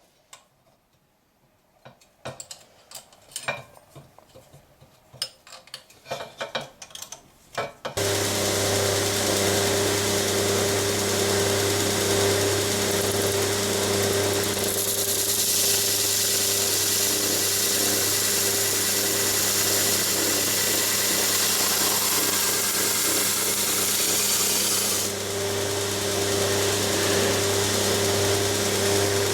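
Scattered light clinks and knocks of metal being handled, then a belt grinder running steadily from about eight seconds in, with the brighter hiss of the steel blade's bevel being ground against the belt for about ten seconds in the middle.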